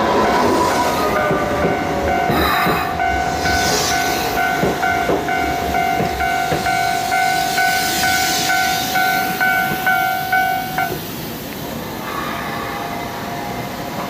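Japanese level-crossing warning bell ringing in an even, repeating electronic clang while a Keisei train passes, with wheel clacks over the rail joints. The bell cuts off suddenly about eleven seconds in, the sign that the train has cleared the crossing.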